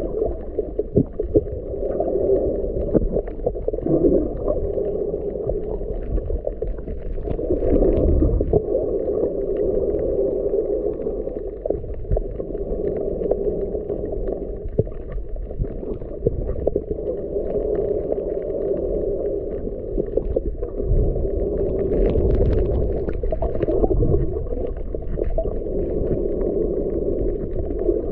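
Muffled underwater noise picked up by a submerged camera: a steady low rush of water that swells and eases every few seconds, with scattered faint clicks.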